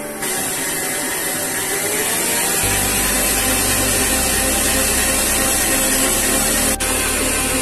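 Electric kitchen mixer motor switching on and running steadily, its low hum shifting a couple of times as it works. There is a brief drop near the end.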